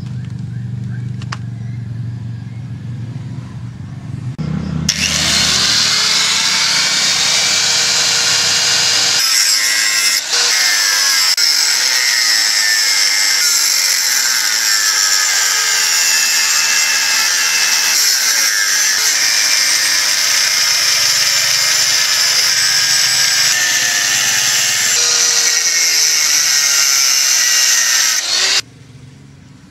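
Electric angle grinder with a cut-off disc cutting through a steel motorcycle sprocket: a loud, high metallic screeching grind that starts about five seconds in, with the pitch sagging and recovering as the disc bites. The sound cuts off suddenly near the end.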